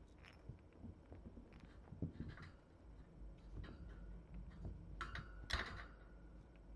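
Faint scuffling, rustling and tapping from kittens playing and pawing right at the camera, in short scattered bursts with a louder scuffle about five seconds in.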